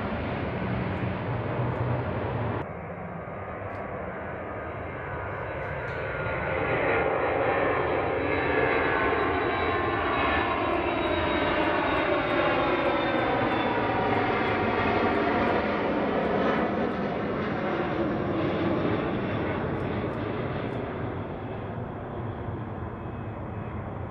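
A C-130 Hercules turboprop drones as it flies away, cut off abruptly about two and a half seconds in. Then a KC-135 Stratotanker's jet engines at takeoff power on its takeoff roll and climb-out: the noise swells as it passes, with a whine that sweeps down in pitch, then slowly fades.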